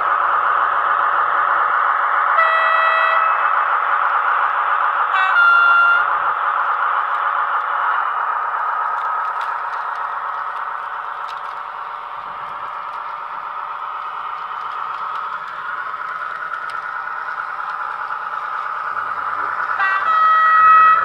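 Sound decoder of a Roco model SNCF X 2800 diesel railcar playing its running diesel engine sound through the model's small speaker, thin and without bass. Three horn blasts sound over it: one about two and a half seconds in, a second about five seconds in, and a third near the end.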